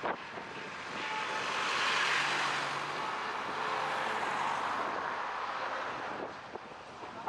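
A car driving past on the street: tyre and engine noise swelling to a peak and then fading away.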